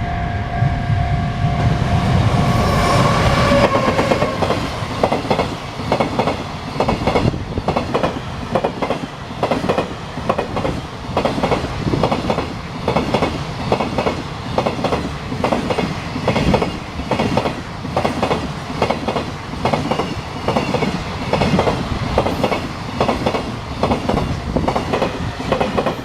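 Container freight train passing, its wagon wheels clicking over the rail joints in a steady, repeating clickety-clack. A steady tone sounds at first and fades out about four seconds in.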